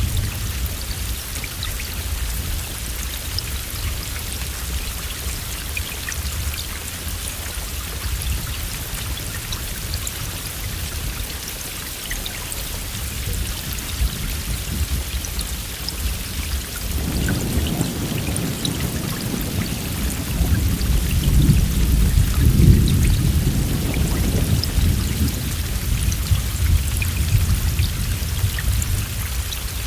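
Steady heavy rain pattering, with a long low roll of thunder that builds a little past halfway, peaks, then fades back under the rain.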